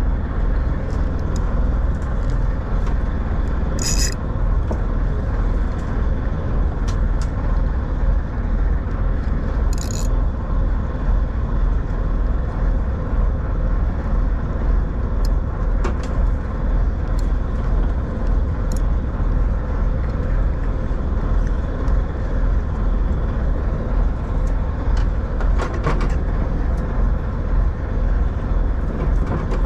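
Steady low rumble of a small fishing boat's engine running, with a couple of short sharp clicks about four and ten seconds in.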